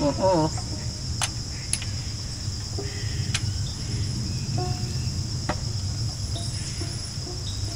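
Insects chirring in a steady, high-pitched chorus over a low steady hum, with a few sharp light clicks of hand tools on the tractor engine.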